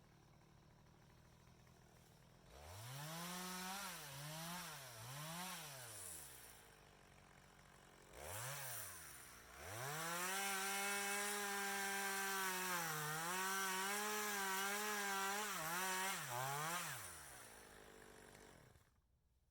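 Two-stroke chainsaw engine revving: three quick blips up and down, a short rev, then held at high revs for about seven seconds with brief dips, before winding down near the end.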